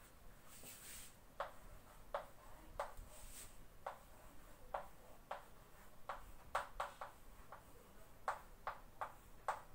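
Chalk writing on a chalkboard: faint, irregular taps and short strokes of the chalk, a dozen or so.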